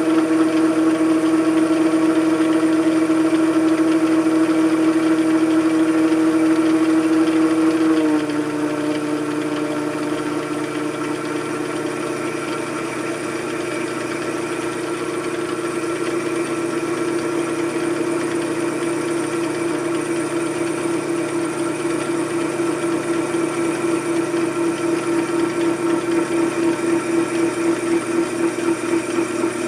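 Machine tool motor running steadily with a strong hum; its pitch and loudness step down abruptly about eight seconds in, and a regular pulsing grows in the hum toward the end.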